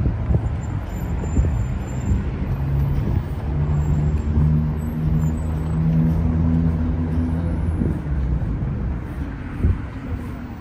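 City road traffic passing on a wide street. A heavy vehicle's engine hums steadily from about three to eight seconds in.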